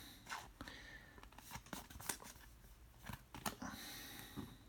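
Trading cards being handled: a few faint clicks of card edges and a brief sliding rustle about four seconds in.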